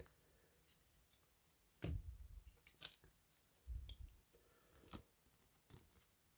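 Faint handling of trading cards: a scatter of soft clicks and light rubbing as cards are slid and handled, with two dull low thumps about two and four seconds in.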